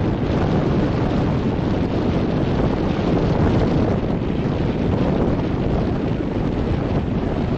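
Steady wind buffeting the microphone, with surf breaking along the shore underneath.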